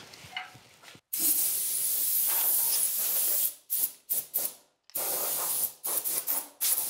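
Compressed-air blow gun blowing shavings off a wood lathe's bed: a steady hiss of air starting about a second in, then a few short blasts, a brief pause, and more hiss ending in a run of short bursts.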